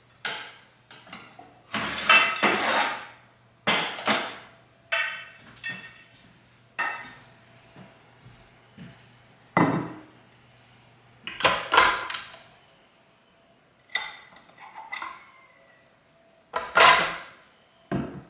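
Kitchen dishes and utensils clattering: a dozen or so separate knocks and clinks, each with a short ring. A faint low hum underneath stops about two-thirds of the way through.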